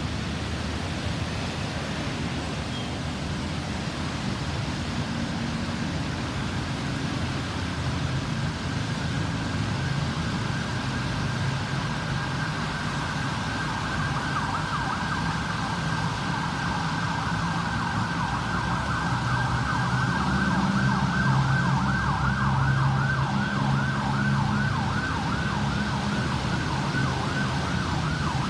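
Ambulance siren in a fast yelp, its pitch sweeping up and down several times a second. It grows louder from about ten seconds in, over steady road-traffic rumble and a vehicle engine.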